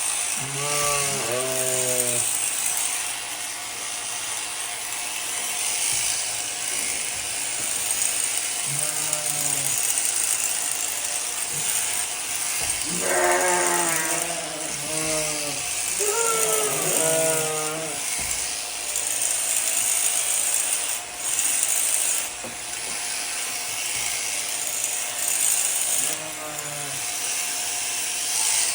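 Electric sheep shears buzzing steadily through a fleece, with a sheep bleating several times.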